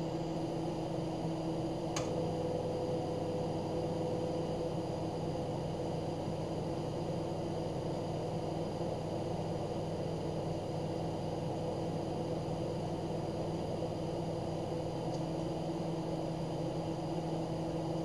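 Proline microwave oven running: a steady hum of several low tones with its fan noise beneath. A short click about two seconds in.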